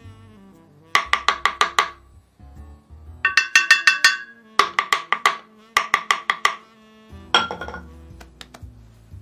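Cartoon tapping sound effect: five quick runs of sharp, pitched wood-block-like taps, about seven or eight taps a second, with short pauses between the runs.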